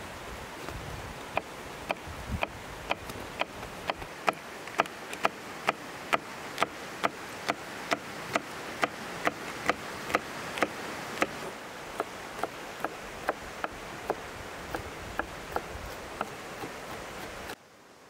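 Chef's knife chopping a green chili pepper on a wooden cutting board: a steady run of sharp taps as the blade strikes the board, about two to three a second, stopping suddenly near the end.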